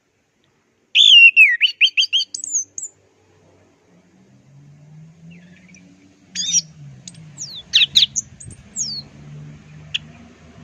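Orange-headed thrush (anis merah) singing: a loud phrase of quick, varied high notes about a second in, then after a pause a few scattered sweeping notes that rise and fall, over a faint low hum.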